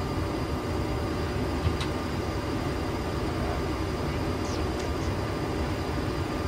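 Steady, deep rush of airflow and engine noise inside the flight deck of a Boeing 737-800 in descent.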